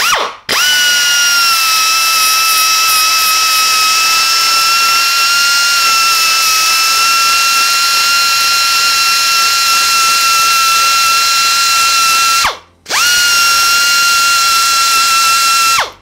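Pneumatic band grinder (air belt file) running under load with a steady high whine and air hiss as it grinds the protruding cable guide area off a carbon bike frame. It stops briefly just after the start and again about twelve seconds in, spinning quickly back up to speed each time, and cuts off near the end.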